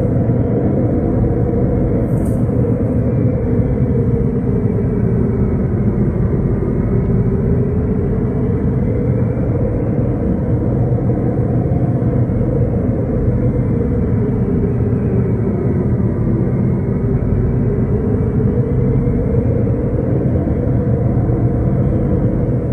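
A loud, steady low rumbling drone whose upper tones slowly sink and rise, about once every ten seconds.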